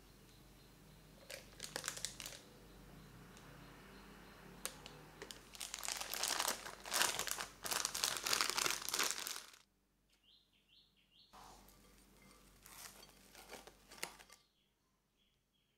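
Thin plastic crinkling in bouts: a piping bag being handled and filled, loudest in the middle, then cling film rustling as it is peeled off a bowl near the end.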